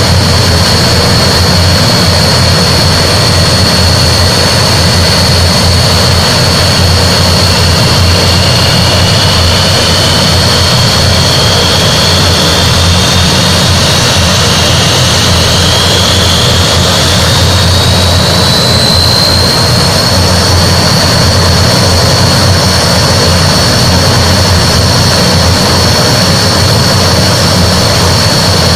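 Antonov An-12's four Ivchenko AI-20 turboprop engines running loud and steady with a high whine. From about a third of the way in, a second whine slowly rises in pitch until it merges with the first, as one engine's speed comes up to match the others.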